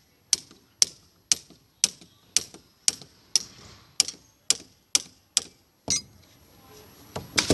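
Sharp metal-on-metal taps, about two a second and evenly spaced, as a seized pipe union is worked loose with pipe wrenches; a few more taps come near the end.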